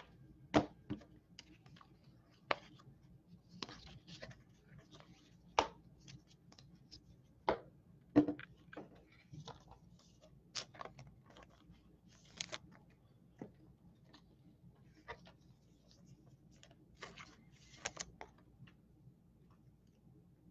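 Baseball cards being handled and flipped through by hand: scattered light clicks and taps of card stock and plastic card holders, at irregular intervals, with a few short rustles.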